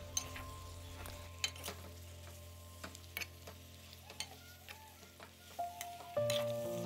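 A spoon stirring chopped onions, capsicum, tomatoes and fried chicken pieces in an aluminium pot, with scattered clicks and scrapes of the spoon against the pot over faint sizzling. Soft background music plays, louder near the end.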